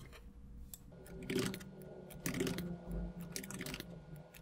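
Typing on a computer keyboard: irregular key clicks.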